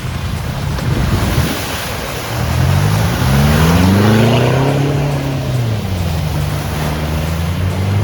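Off-road vehicle engine revving up and easing back to a steady run, over a continuous rushing noise.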